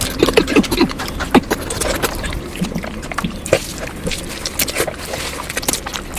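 Close-miked eating of mutton fat curry: a fast run of wet chewing, smacking and lip-clicking mouth sounds.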